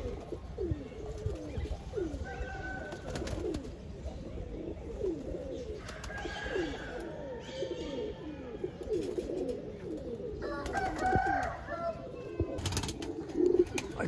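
Domestic pigeons cooing: many low coos overlapping, each bending up and down in pitch.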